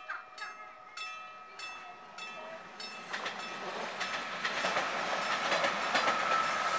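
A level-crossing warning bell rings in repeated strokes. Over the second half a passenger train comes in and passes the crossing, its wheel and running noise swelling to the loudest point near the end.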